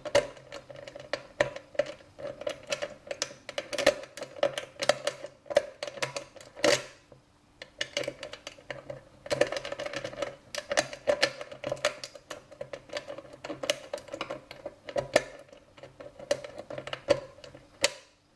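A lock rake working the small four-wafer lock of a child's money box: quick, irregular clicking and rattling of the wafers as the rake goes in and out, with a short lull about seven and a half seconds in before the clicking starts again.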